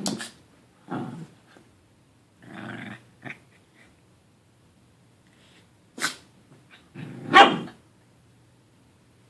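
A dog growling and barking in short separate outbursts, about six in all, the loudest near the end.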